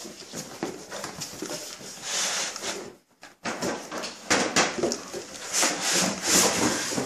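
Cardboard box, foam end caps and plastic wrapping scraping and rustling as a heavy car amplifier is worked loose and lifted out of its packaging, in irregular bursts that grow busier in the second half.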